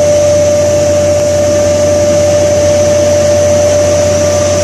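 Plastic film blowing machine (blown-film extruder) running while it makes LDPE film: an even machine whir with a constant high-pitched hum and a low drone.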